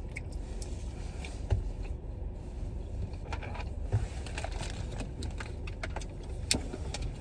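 Light clicks and rustles of small objects being handled inside a car, over a steady low rumble.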